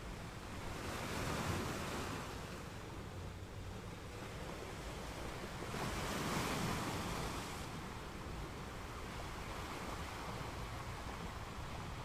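Sea waves washing in gently, with two swells of surf, one about a second in and one about six seconds in, over a steady low rumble of wind on the microphone.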